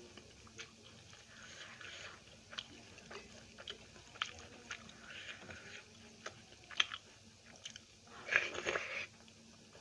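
Close-miked eating: chewing and wet mouth smacks with scattered sharp clicks, and a louder burst of chewing noise lasting about a second near the end.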